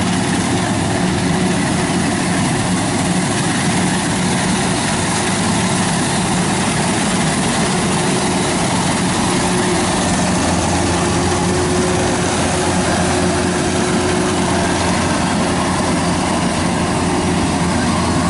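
Kubota rice combine harvester's diesel engine and threshing drum running steadily under load as it cuts rice through soft, boggy ground.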